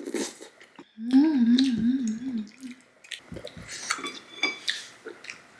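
A person hums a wavering, tuneless "mmm" over a mouthful of food, followed by a run of light clicks and taps of utensils against a plastic food container while eating.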